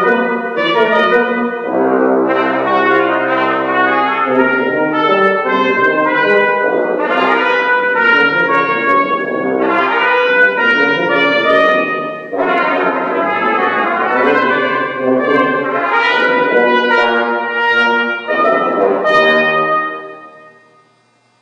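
Brass instruments playing music together in long, sustained phrases. The music ends about two seconds before the close with a final chord that dies away: the close of the piece.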